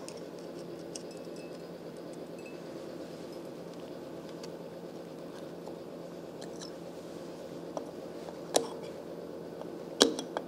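Small electric shop heater's fan humming steadily. Near the end come a few sharp metallic clicks as a snap ring is worked onto a gearbox shaft with snap-ring pliers.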